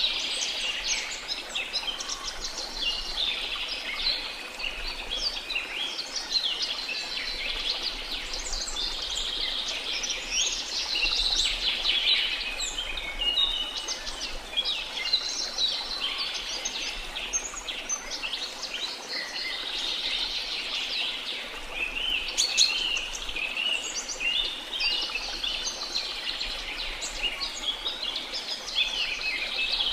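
Dense chorus of many rainforest birds chirping and trilling over one another without pause.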